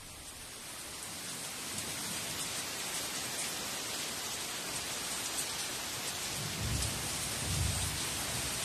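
Heavy tropical rain pouring down steadily, swelling in over the first two seconds. Thunder rumbles low twice near the end.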